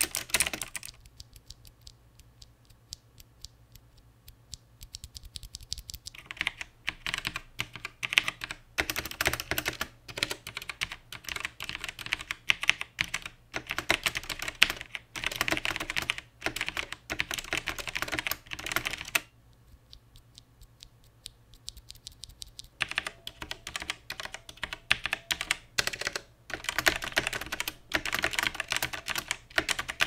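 Gaming-style typing on a Logitech G Pro X mechanical keyboard, keys W, A, S, D, Shift and spacebar. The last second of GX Blue clicky switches comes first; after a few near-quiet seconds there is a stretch on GX Brown tactile switches, and after another pause a stretch on GX Red linear switches.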